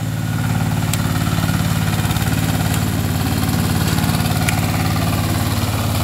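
Engine of a boat-hulled paddy tractor running steadily and chugging under load as it ploughs through a flooded, muddy rice field.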